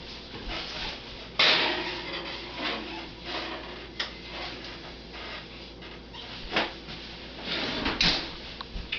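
Kitchen handling noises: a sudden loud knock about a second and a half in, then scattered sharp clicks and knocks, as of an oven door, a drawer and baking trays being worked.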